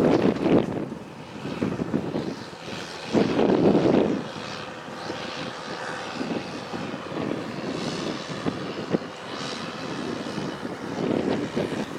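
Huddig 1260B backhoe loader's engine running steadily, with gusts of wind hitting the microphone at the start and about three seconds in.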